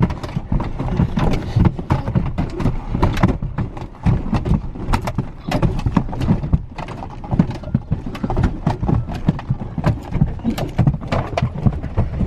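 Rapid, irregular knocking and thumping inside a car, someone pounding and thrashing around in a staged freak-out.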